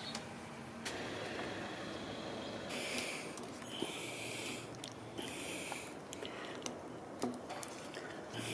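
Blue silicone adaptor being worked by hand onto a corrugated plastic air-intake hose: rubbing and scuffing in a few short bursts, with light clicks.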